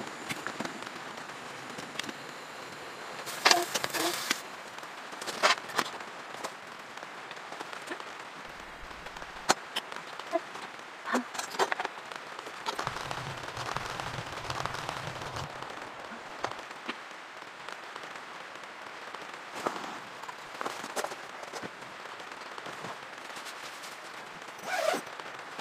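Steady hiss of rain on the tent with frequent sharp clicks and crackles, and a few louder metal clinks of cookware, the loudest about three and a half seconds in and near the end.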